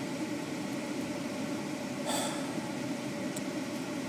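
Steady mechanical hum of a fan or motor running, with a brief soft rustle about two seconds in.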